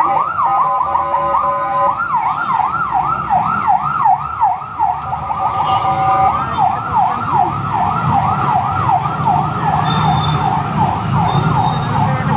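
Emergency-vehicle siren on a fast yelp, rising and falling about three times a second, switching briefly to a steady tone about a second in and again about six seconds in. A low rumble grows underneath in the second half.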